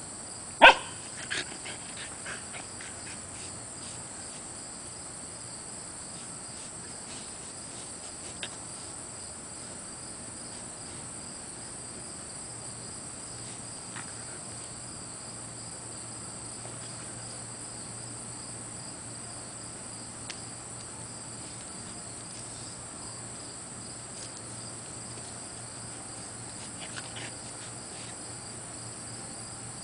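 A Siberian Husky puppy gives one short, loud bark about a second in, followed by a few faint clicks. A high, steady insect trill with a pulsing upper note continues underneath.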